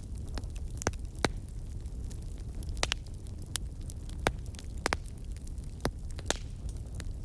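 Campfire crackling: irregular sharp pops and snaps over a steady low rumble of burning.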